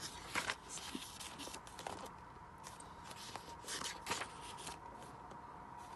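Pages of a paperback manga volume being turned and handled: several soft paper rustles and light scrapes of fingers on paper.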